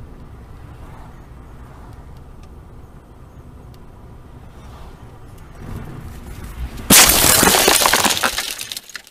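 Car collision heard from a dashcam inside the car: steady road noise, which swells just before a sudden loud crash about seven seconds in, followed by clattering debris that dies away over about two seconds.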